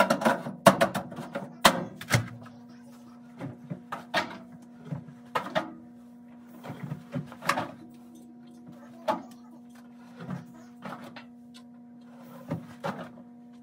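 Clunks and knocks of laundry being handled at an open front-loading clothes dryer, a quick cluster in the first two seconds and then scattered knocks. A steady hum runs underneath.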